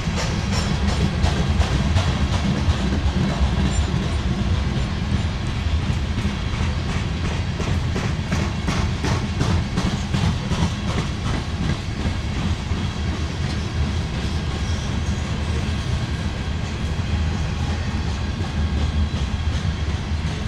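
Freight train's hopper cars rolling past close by: a steady low rumble with wheels clacking over rail joints, the clacks thicker in the first half.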